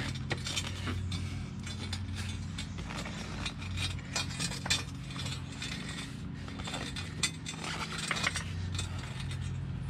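A thick rubber bicycle inner tube being worked onto the top coil of a steel coil spring: scattered small clicks and rubbing as the rubber is pushed around the coil. A steady low hum runs underneath.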